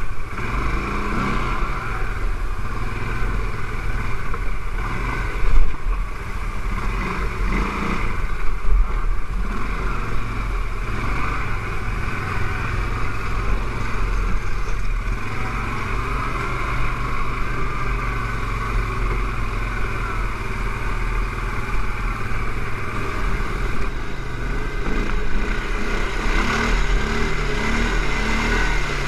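CFMoto X5 ATV engine running as the quad is ridden over rough dirt trail, with a sharp thump about five and a half seconds in.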